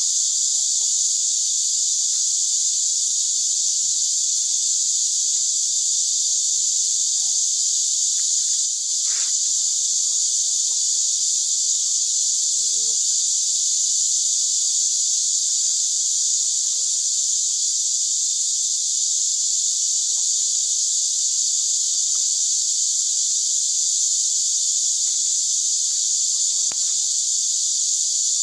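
Steady, high-pitched insect chorus, with a few light clicks and taps of split bamboo strips being laid crosswise on the ground to start a woven basket.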